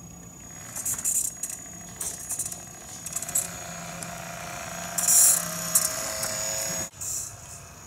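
Small electric drive motor and gearing of a Siku Control radio-controlled Scania truck pulling a tipper trailer: a thin whine that rises a little in pitch while it drives, with scattered rattles, cutting off suddenly about seven seconds in.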